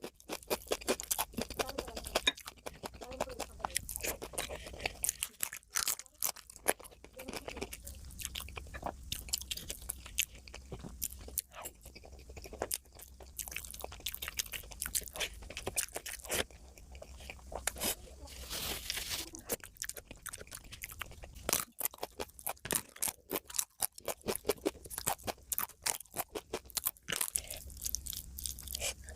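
Close-miked mouth sounds of a person eating: steady chewing with frequent crunching and wet clicking bites.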